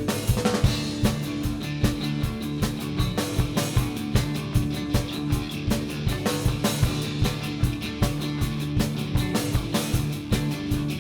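Live rock band playing an instrumental stretch between vocal lines: drums keep a steady, dense beat under held low chords from the guitars and bass.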